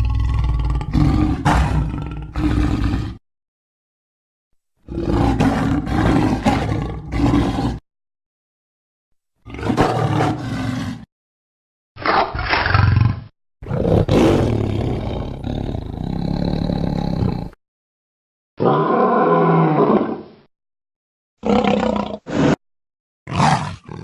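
Designed creature sound effects of a saber-toothed cat (Smilodon): a string of about eight deep roars and snarls, each one to four seconds long, separated by short silences, the last few shorter and clipped.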